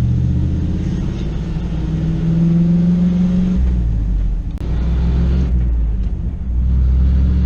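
Old Ford pickup's engine pulling under acceleration, its pitch rising for a few seconds. It drops away briefly about halfway through, as a manual gearshift does, then pulls again at a lower pitch.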